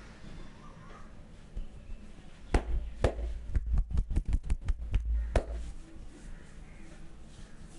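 A barber's hands striking a person's body in percussive massage: about a dozen sharp slaps with a deep thump to each, starting a couple of seconds in, the middle ones in a quick run of about six a second.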